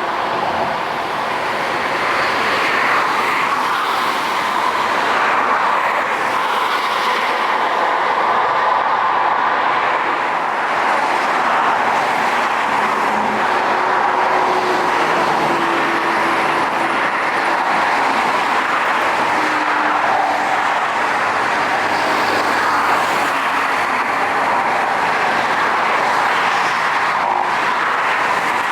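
Jet airliner engines at takeoff thrust: a loud, steady rushing noise with a faint whine in it.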